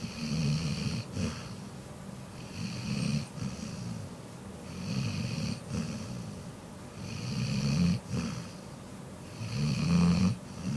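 Steady rhythmic snoring: five snores about two seconds apart, each lasting about a second.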